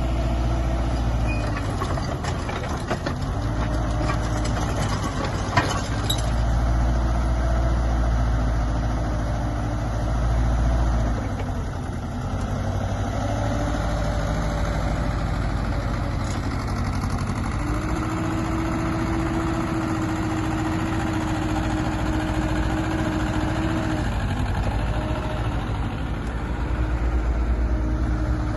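Kubota KX161-3SZ tracked excavator's diesel engine running steadily, with a pitched whine that steps up and down several times as the machine works.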